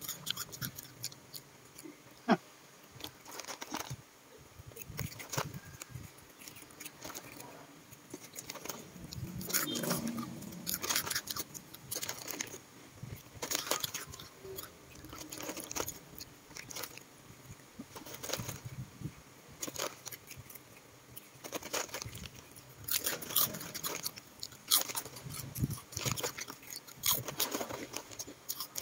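Cats chewing and crunching dry puffed snack pieces, in irregular bursts of sharp crackles, with the rustle of a foil snack bag as a hand reaches into it.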